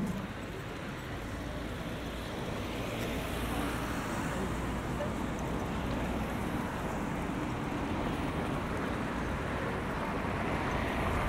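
Road traffic on a village high street: vehicles passing with a low engine rumble and tyre noise, growing slightly louder after a couple of seconds.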